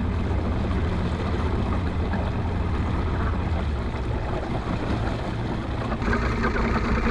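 Bass boat's outboard motor running steadily at low speed, mixed with wind and water noise as the boat cruises; the sound shifts slightly about six seconds in.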